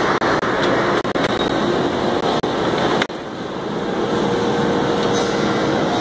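Loud, steady machinery noise of a woodworking cabinet shop, with a faint steady hum in the middle. The noise breaks off briefly several times in the first three seconds; a sharp click comes about three seconds in, after which it drops a little and builds back up.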